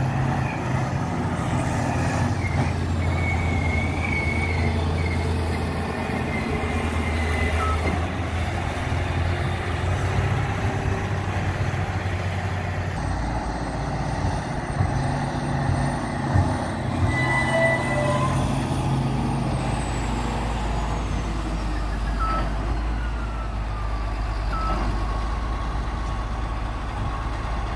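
Caterpillar 637C twin-engine scraper's diesel engines running steadily as it drives across the dirt; the engine note drops lower about halfway through.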